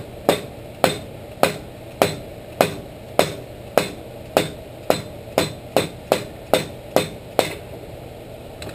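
Rubber mallet tapping on the end of a Shopsmith 10ER quill spindle held in a vise, about fifteen even strikes with a short ring, quickening a little toward the end. The taps drive the rear bearing off its press fit on the spindle, with a washer bearing on the inner race.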